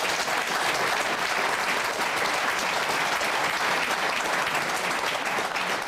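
Studio audience applauding, many people clapping at a steady level.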